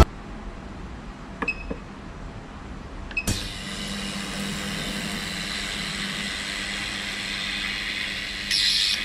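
Launch CNC-603A injector cleaner and tester giving two short beeps as its controls are pressed, then starting up with a steady mechanical hum. Near the end a louder, rougher noise joins in.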